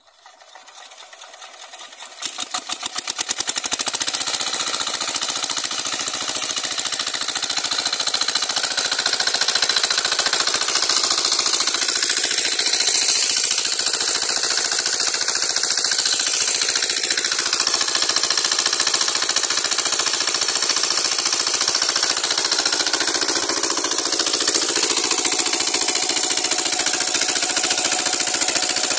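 Small CD diesel engine driving a water pump set, starting up: its firing beats quicken and grow louder over the first few seconds, then it settles into a steady fast knocking run.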